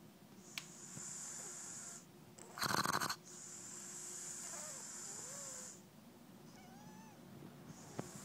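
A sleeping flat-faced dog snoring: long hissing breaths through the nose, broken by one loud snort about three seconds in. Faint squeaky whistles from the nose come near the end.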